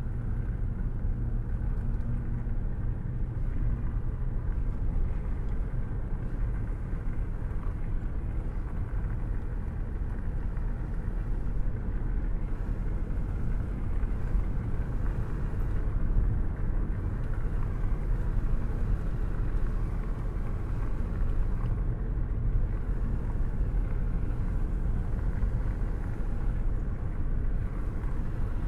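Rain and thunderstorm ambience: a steady, low, rumbling wash of noise with no sharp thunderclaps.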